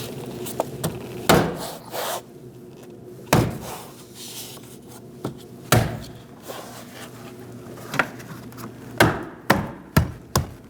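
Interior door trim panel being pressed onto the door by hand, its push-in grommets snapping into the holes: about seven irregular knocks and thumps, with some rubbing of plastic between them.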